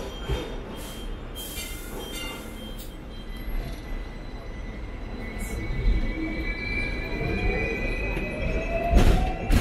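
Hong Kong double-decker tram running on its rails, heard from on board: a steady low rumble with a few sharp knocks, and from about halfway through a whine that rises slowly in pitch as the tram picks up speed.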